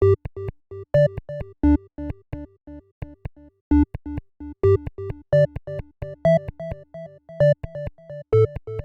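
Electronic ringtone tune played on a synthesizer: short, clipped melody notes in a steady bouncing rhythm over a pulsing bass line.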